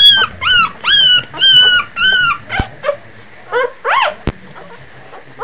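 Newborn puppies crying and whimpering: a run of high-pitched squeals, about two a second, each rising then falling in pitch. They break off a little over two seconds in, with a few more cries near four seconds in and some sharp clicks between.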